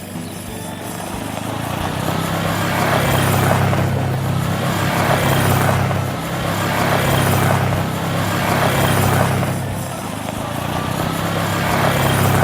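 Motor vehicle engine running steadily, with a rushing noise that swells and fades about every two seconds.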